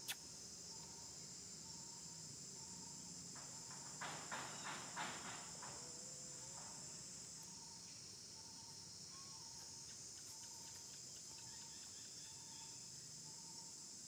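Faint steady high-pitched drone of insects, with a short chirp repeating about twice a second. About four seconds in, a brief run of crackles, like dry leaves being stirred.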